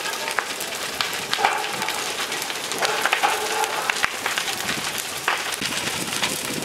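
Large shed fire burning fiercely, a dense steady crackle with many sharp pops and snaps.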